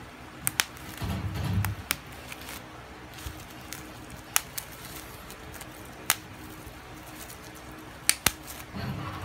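Scattered sharp clicks and crackles of plastic bubble wrap being handled around a boxed studio condenser microphone, with low background sound from the room between them.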